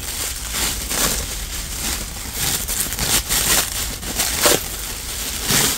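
Thin black plastic bin bag crinkling and rustling as it is pulled and unwrapped by hand, a dense, irregular crackle throughout.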